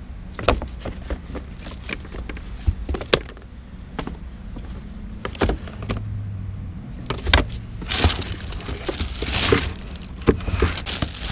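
Handling noise from picture frames being lifted out of a cardboard box: repeated sharp clacks and knocks of frames against each other and the box, then longer paper rustling from the crumpled packing paper near the end.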